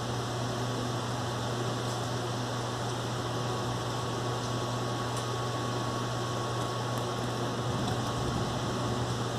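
Steady hiss of rain falling during a thunderstorm, with a constant low hum underneath.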